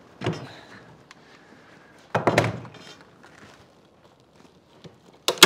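Two dull thumps as the fabric dust cowl is pulled and pressed into place, then two sharp, loud snaps of a staple gun firing staples into it in quick succession near the end.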